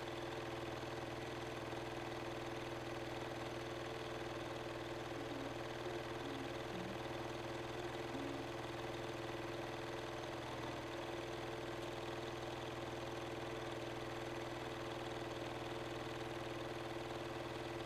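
Janome sewing machine running steadily at an even speed, stitching a long seam down a folded fabric strap.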